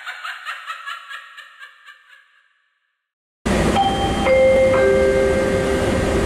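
A short mallet-percussion jingle rings out and fades over the first two seconds or so. After a brief silence, steady noise inside the Terminal Link Train car starts, and three chime tones enter one after another and hold, the chime that comes before the train's departure announcement.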